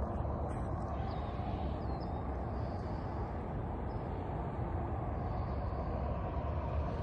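Steady low outdoor background rumble, with a few faint bird chirps in the first few seconds.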